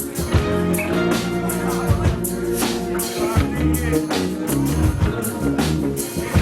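A live band playing a song, with drums and guitar, at a steady loud level.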